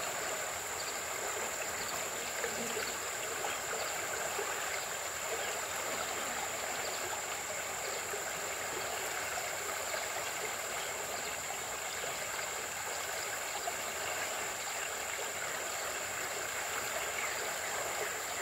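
Shallow, muddy river water flowing steadily, an even rush with no splashes, with a constant thin high whine over it.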